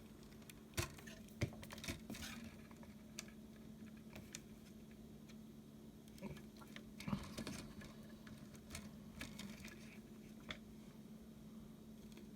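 Faint clicks and taps of hands handling wires and a soldering iron while soldering a ground wire onto a circuit board, over a steady low hum.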